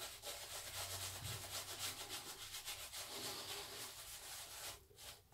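Semogue 1305 boar-bristle shaving brush scrubbing lather over a stubbled cheek: a soft, rapid, even scrubbing hiss that stops near the end. The lather is being worked back up where it had begun to dry.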